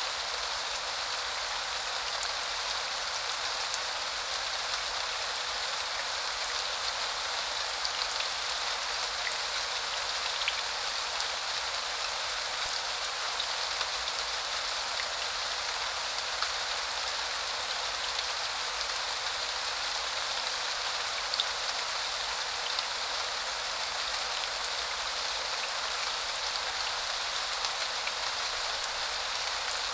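Steady spring rain falling, an even hiss of rainfall with scattered faint drop ticks on surfaces.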